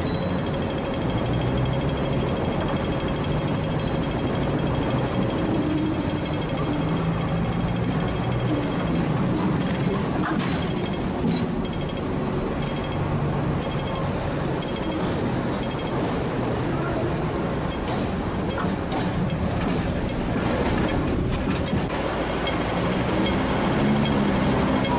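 Street traffic at a tram stop: Hong Kong double-deck electric trams and cars running on the road, with a fast, even mechanical ticking throughout that breaks up into short runs after about a third of the way in.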